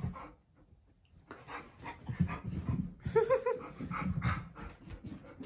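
Adult Alaskan malamute and a malamute puppy play-fighting: a run of short, noisy breaths and scuffles, with one short whine-like dog call about three seconds in.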